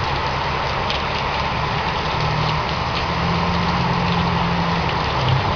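Vehicle engines running in slow traffic on a flooded street, their low hum strengthening a couple of seconds in, over a steady hiss of water.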